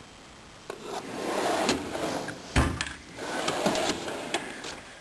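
Snap-on KR1000 toolbox drawers sliding along their runners with a rubbing, scraping noise, and one sharp knock about halfway through as a drawer stops.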